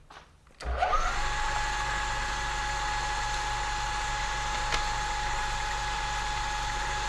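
Milling machine spindle switched on about half a second in, winding up to speed with a brief rising whine, then running steadily with a constant hum and whine, the drill in its chuck not yet cutting.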